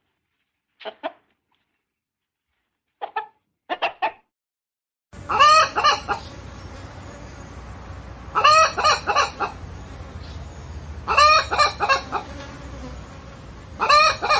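Chicken clucking in short pairs of notes. About five seconds in, a different recording starts, with a steady background hum and loud drawn-out calls repeating about every three seconds, four times.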